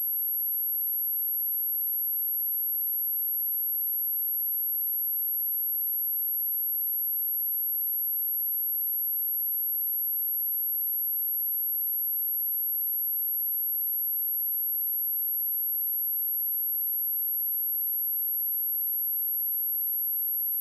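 A single electronic 11,583 Hz sine-wave test tone: one very high-pitched pure tone held at a steady pitch and level. It is a speaker test and speaker-cleaning tone, meant to vibrate water and dust out of a speaker.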